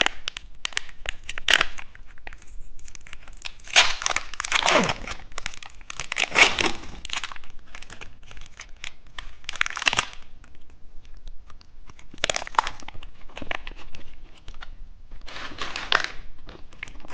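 Plastic wrapper of a cheese-stick snack being crinkled and torn open, in several bursts of rustling with short pauses between.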